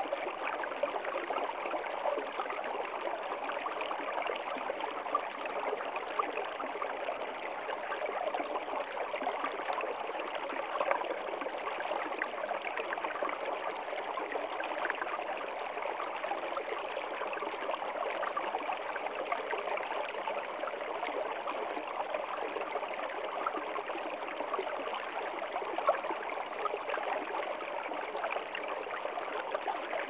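Small stream flowing fast over a rock close by, a steady splashing babble with little irregular splashes throughout.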